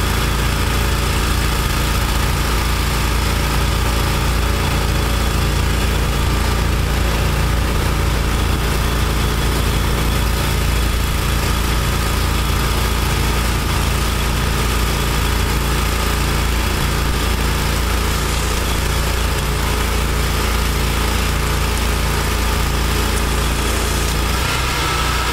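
Trailer-mounted pressure washer and wastewater vacuum recovery equipment running steadily: a constant engine drone with a steady whine over it, which shifts up a little in pitch near the end.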